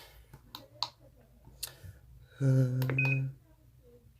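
Plastic buttons on a plug-in wireless doorbell receiver clicking as they are pressed to set the volume, with a short steady low buzz about two and a half seconds in and a short high beep just after it.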